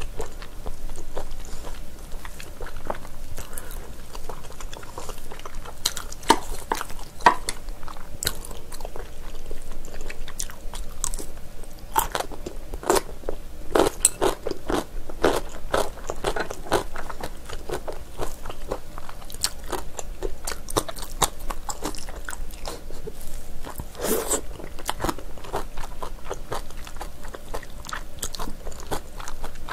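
Close-miked chewing of chewy, gelatinous spicy braised beef trotter: a dense run of wet mouth clicks and smacks, busiest around the middle, with one louder smack a little after twenty seconds.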